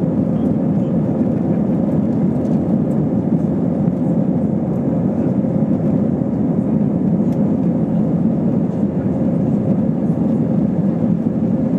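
Steady cabin noise inside an Airbus A320-232 climbing after takeoff: the even hum of its IAE V2500 turbofan engines and rushing air, with a faint steady tone running through it.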